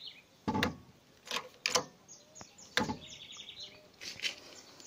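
Hydraulic bottle jack being pumped by hand under a car's weight, a sharp clack with each pump stroke about once a second as the ram extends. Birds chirp in the background.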